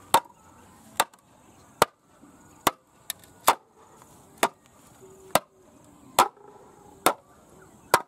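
Bamboo post being driven into the ground by blows from a length of green bamboo swung as a mallet: about ten sharp knocks, evenly spaced a little under a second apart.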